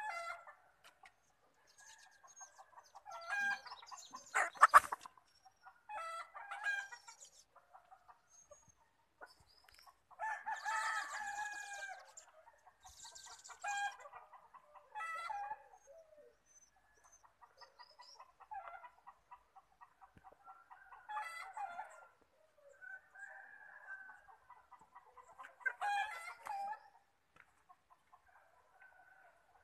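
Chickens clucking in short calls every few seconds, with a rooster crowing. A single sharp knock, the loudest sound, comes about five seconds in.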